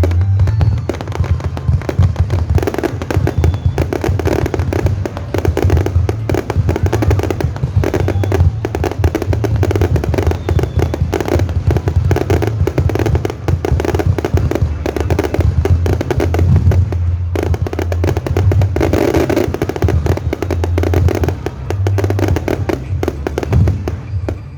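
A fireworks display going off in a dense, continuous barrage of bangs and crackles, with music playing underneath.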